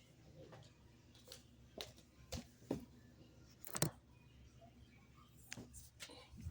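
A few faint, irregular clicks and taps over a low steady hum in a small room, the loudest a little under four seconds in.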